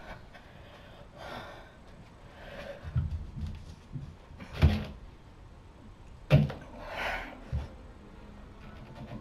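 Doorway pull-up bar knocking against the door frame as someone does pull-ups: several dull thumps, with hard breathing between them.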